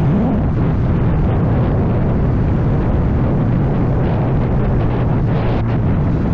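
CFMoto Papio motorcycle engine running under way, its note dipping and climbing again right at the start, buried under heavy wind noise on the microphone.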